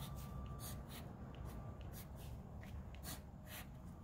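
Pencil writing on heavy watercolour mixed-media paper: faint, irregular scratchy strokes of the graphite over the sheet, with a low steady hum beneath.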